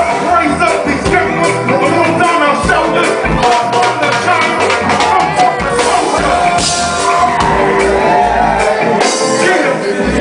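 Live band music with a lead vocal over a steady bass and drum beat.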